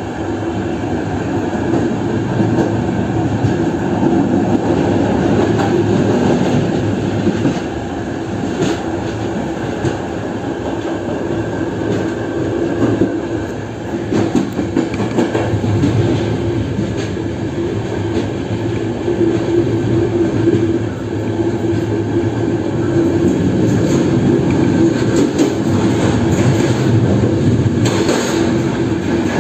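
Passenger train running along the line, heard from on board: continuous wheel-on-rail noise with occasional clicks over the rail joints. Near the end the sound turns brighter as the train enters a tunnel.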